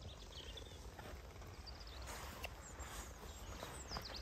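Faint birdsong outdoors: a few short high chirps and a quick downward-sliding call near the end. Under it are a low rumble and soft footsteps of someone walking.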